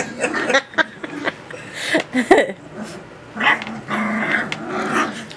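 Litter of nearly three-week-old Saint Bernard puppies grumbling and growling as they play-fight, with a louder sliding cry a little over two seconds in; their voices are young and only just coming in.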